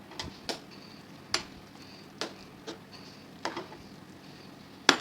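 A cooking spoon knocking against the biryani pot in sharp, irregular clicks, about seven in five seconds, the loudest near the end.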